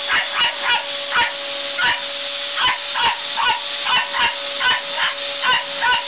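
Border terrier barking again and again, about two sharp barks a second, over the steady hum and hiss of a running vacuum cleaner.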